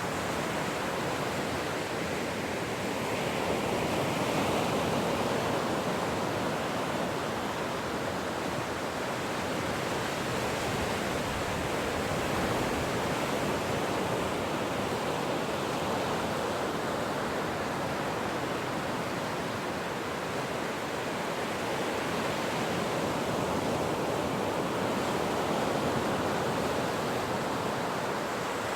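Ocean surf washing continuously, a dense hiss of water that swells and eases slowly over several seconds.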